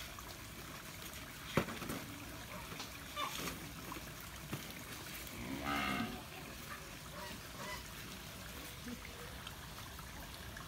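Faint outdoor background noise with a sharp click about a second and a half in. About six seconds in there is one short pitched call that bends up and down.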